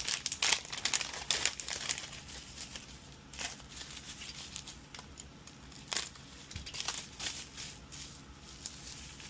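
Plastic packaging crinkling as a parcel of electronic components is handled. The crinkling is busy for the first two seconds, then thins to scattered rustles and small clicks.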